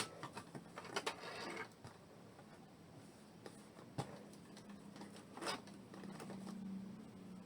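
A sharp click as the small portable electric sewing machine stops, then faint scattered clicks and rustles of the machine's parts and fabric being handled, with a faint low hum in the second half.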